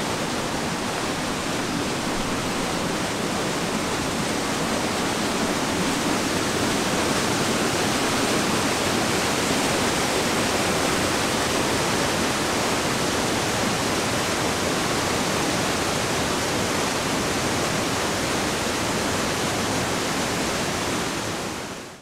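Mountain stream cascading through a narrow rock channel: a steady, loud rush of white water that cuts off sharply at the end.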